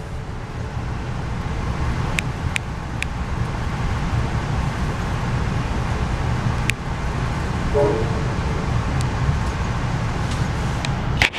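Steady low rumble of an Amtrak passenger train running along the track, heard from inside the coach, with a few sharp clicks scattered through it and a brief tone about eight seconds in.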